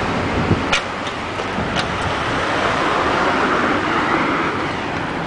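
Steady road traffic noise, as of cars going by on a street, with two short sharp clicks about a second and two seconds in.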